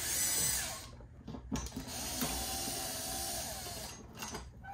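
Power drill running in two bursts: a short noisy spin at the start, then a steady whine of about two and a half seconds that winds down near the end, as fasteners are backed out during the teardown.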